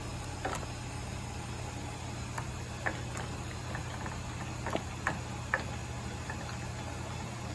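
Koan Cho KC1640 lathe running with a steady low hum, with scattered light clicks and knocks.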